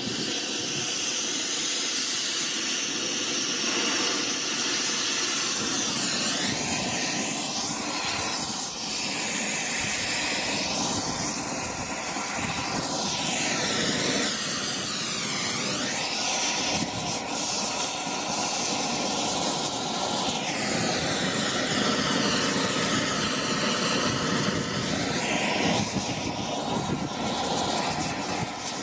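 Oxy-fuel torch flame burning with a steady hiss, its tone wavering slowly as the flame plays over rusted steel.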